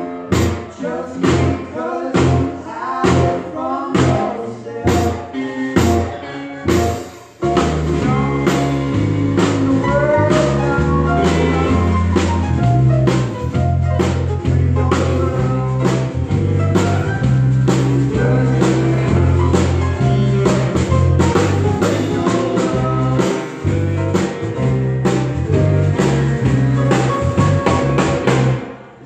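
Live band playing with drum kit, electric bass, keyboard, saxophone and acoustic guitar. It opens with short, punchy rhythmic hits, then about seven seconds in the bass and full band come in and play on steadily, easing off briefly near the end.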